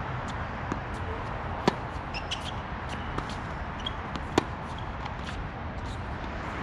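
Tennis rally: two loud, sharp pops of a racket striking the ball about two and a half seconds apart, with fainter pops of the far player's hits and ball bounces between them, over steady background noise.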